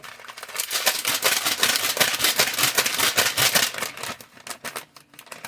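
A packet of dry onion soup mix crinkling as it is handled and opened: a dense run of crackles that thins out about four seconds in.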